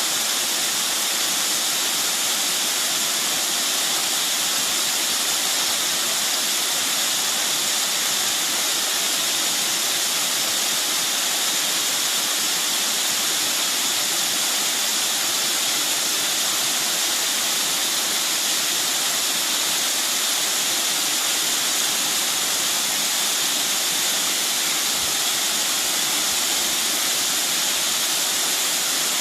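Water of a mountain valley stream rushing steadily, an unbroken hiss without changes.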